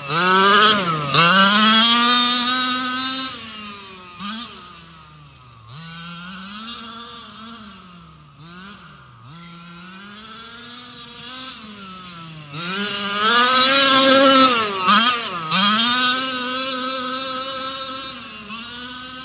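Losi MTXL RC monster truck's stock gasoline engine revving up and down as the truck drives, with its pitch rising and falling constantly. It is loudest about a second in and again about two-thirds of the way through, and fainter in between as the truck runs farther off.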